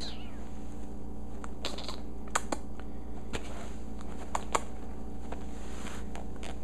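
Light, irregular clicks and taps from a kitten scrabbling and pouncing on clothes on a wooden parquet floor, a handful scattered through and the sharpest in pairs a little over two seconds in and about four and a half seconds in, over a steady low hum.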